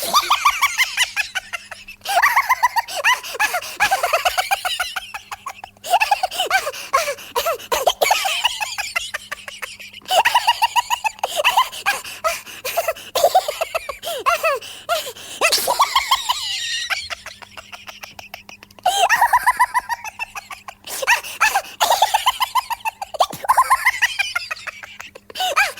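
A series of separate bouts of human laughter, each a rapid run of pulsed 'ha-ha' sounds, with short breaks between them.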